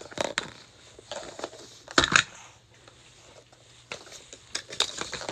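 Blue plastic Mini Brands capsule ball being twisted and pulled open by hand: scattered plastic clicks and crinkles, with two sharp clicks about two seconds in as the halves come apart.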